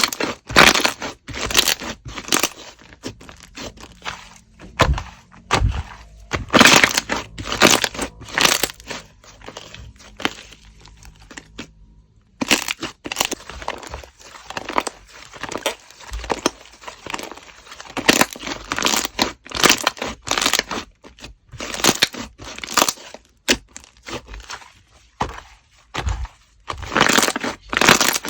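Slime being pressed and squeezed by hand, giving dense runs of sharp crackles and pops, with a brief pause about twelve seconds in.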